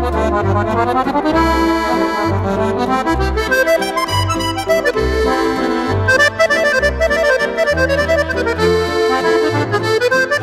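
Instrumental music led by accordion, with quick stepping runs of melody notes over a bass line.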